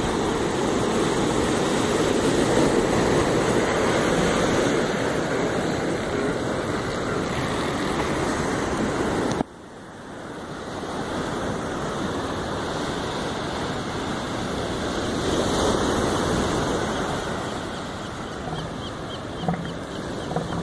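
Pacific surf breaking on the beach with wind on the microphone; the sound cuts off abruptly about halfway through and comes back. Near the end a northern elephant seal bull starts its low, pulsed threat call.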